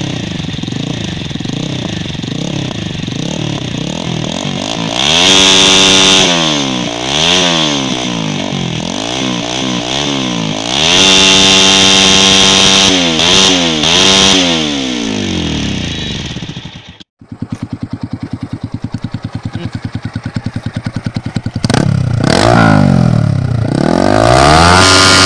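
TVS Apache RTR 200 4V's 198cc single-cylinder engine running through an exhaust with the dB killer baffle removed: it idles, then is revved hard several times, rising and falling in pitch, about five seconds in and again around eleven seconds. After a cut it idles with an open, pulsing exhaust note and is revved again near the end.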